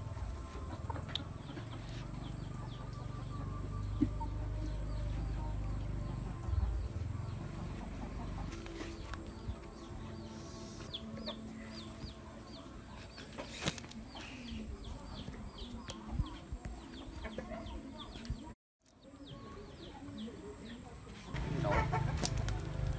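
Short, repeated bird calls, many of them in quick runs, with low rumbling noise through the first few seconds and a louder low rumble near the end.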